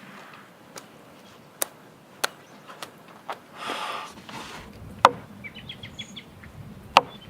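Scattered sharp knocks or clicks, the loudest two about five and seven seconds in, with a brief rustle just before four seconds. A bird chirps a quick run of short notes about six seconds in.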